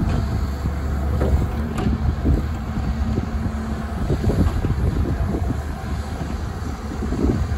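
Diesel engine of a Doosan DX140W wheeled excavator running steadily while the arm and bucket are moved out, with wind buffeting the microphone.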